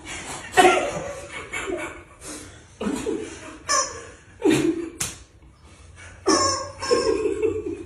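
Rubber squeaky chicken toys squawking in a series of short pitched bursts, the longest near the end, mixed with men laughing.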